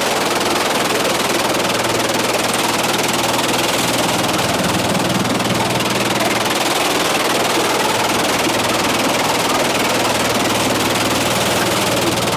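A machine's motor or engine running steadily: a constant low hum under loud, even noise.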